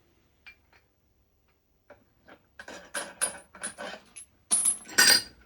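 Ringing metal-on-metal strikes driving a new wheel bearing race the last of the way into its hub after it went hard. A couple of light clicks come first, then from about two seconds in a quick run of roughly ten strikes, two or three a second. The heaviest strikes come near the end.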